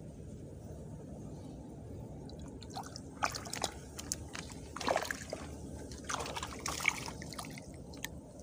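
Small water splashes and drips among marsh reeds over a steady low rumble. The splashes come in an irregular run starting about three seconds in and ending near the end.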